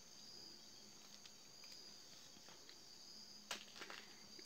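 Near silence: room tone with a faint steady high-pitched tone. About three and a half seconds in comes a brief soft rustle as the beadwork is handled.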